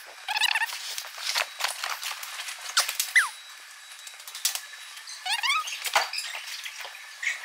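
A loaded folding hand truck rolling and knocking over stone paving, with clicks from its frame and handle. Runs of high squeaks and chirps come in several times, about half a second in, near three seconds and again after five seconds.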